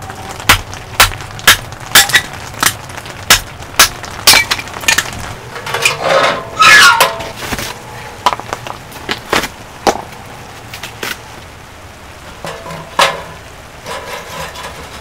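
Kindling and firewood being snapped, handled and fed into a small wood stove. There is a run of sharp cracks about two a second for the first five seconds, a louder clatter of wood and stove metal around six to seven seconds, then scattered knocks.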